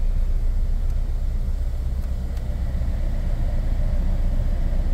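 2009 Toyota Camry engine idling roughly with a steady low rumble, misfiring on cylinders 1 and 4 and shaking badly with the AC on.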